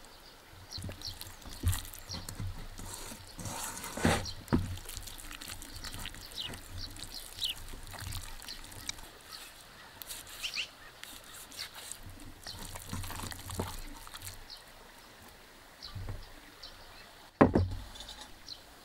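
Wet food-preparation sounds: garlic marinade spooned and spread over a slab of raw ribs in a pan, and the meat handled and cut with a knife. Near the end comes a heavy knock as a cast-iron pot is set down on a wooden table. Birds chirp throughout.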